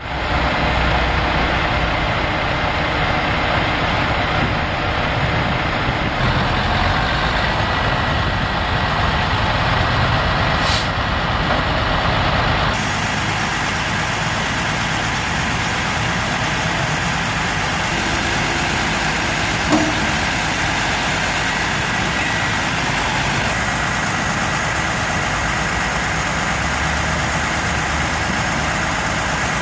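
Heavy rotator tow truck's diesel engine running steadily, with one short knock about twenty seconds in.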